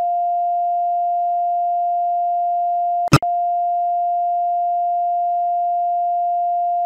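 Steady 700 Hz sine-wave test tone for checking left and right speakers. It moves from the left channel to the right about three seconds in, with a short click at the switch.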